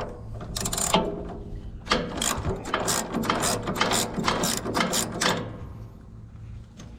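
Rapid ratcheting clicks in a run of short strokes as the drive-belt tension adjuster on a Wood-Mizer LT15 sawmill is backed off to lower an over-tight belt. The clicking stops a little after five seconds.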